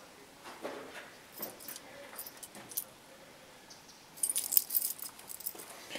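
Light metallic jangling and clicking, heaviest in a short flurry a little after four seconds in.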